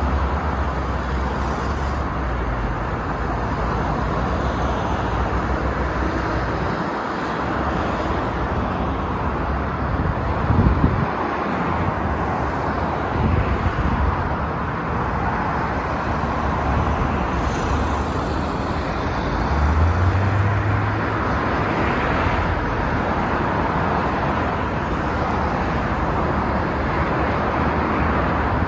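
Steady traffic noise from a wide multi-lane highway: the tyre and engine noise of many cars passing below. Louder low rumbles from passing vehicles come about ten and twenty seconds in.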